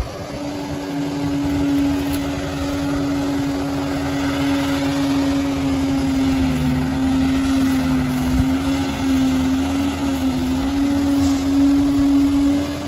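Bulldozer's diesel engine running steadily under load, with a strong steady whine over the rumble.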